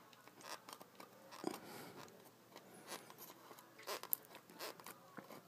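Flathead screwdriver twisting and prying under the lip of a Porsche 944 temperature and fuel gauge to lift it: faint, scattered scrapes and small clicks.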